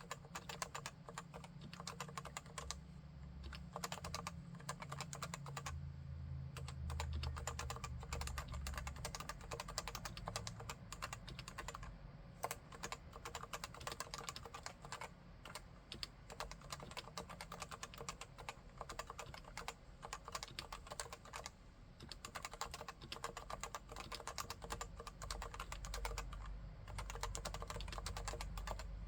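Leopold FC980C keyboard with stock 45 g Topre electrostatic capacitive switches being typed on in a steady, fast stream of keystrokes, with a few brief lulls.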